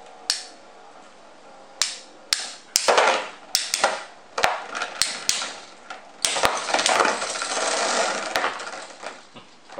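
Two Infinity Nado 5 battle tops spinning and clashing in a plastic stadium: a series of about a dozen sharp clacks as they strike each other and the arena wall, with stretches of whirring and scraping about three seconds in and again from about six to eight seconds in.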